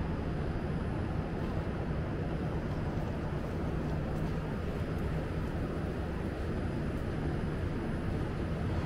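Steady low rumbling hum of an underground metro station platform, even throughout with no distinct events.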